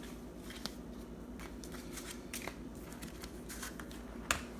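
Trading cards being handled and sorted: light sliding and small clicks, with one sharper tap near the end, over a steady low hum.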